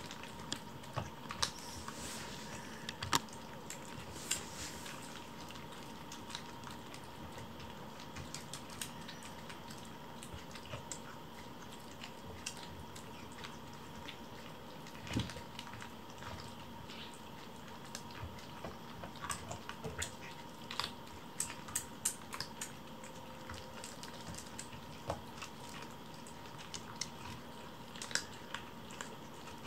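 Four kittens eating from bowls: soft, irregular smacking, lapping and chewing clicks, with a faint steady hum underneath.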